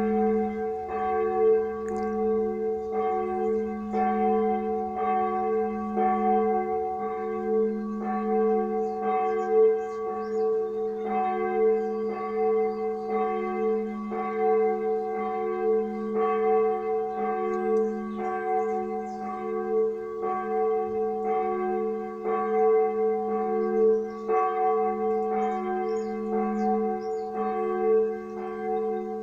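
A large bell ringing, struck over and over about once a second, each stroke landing while the last one is still sounding, so the tone never dies away.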